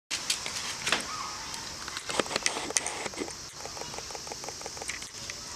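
Ambient sound picked up by a Canon EOS 5D Mark II's built-in microphone: a steady high hiss with scattered clicks and taps. From about three and a half seconds in comes a quick run of even ticks, about seven a second. This built-in mic also picks up the camera's own motor noise.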